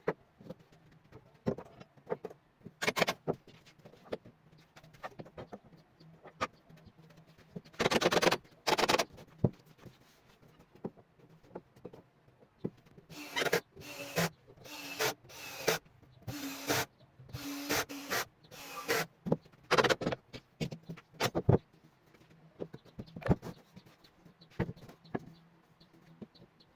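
Rasping strokes of hand work on wood, coming irregularly, with a run of about seven strokes roughly one a second past the middle.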